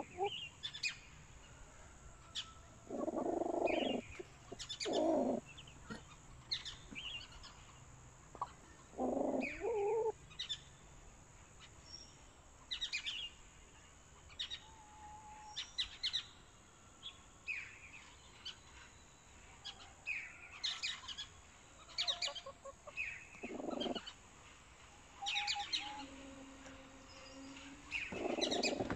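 Hens crowded in a nest crate making low clucking calls a few times, each about half a second to a second long, with short high chirps scattered throughout.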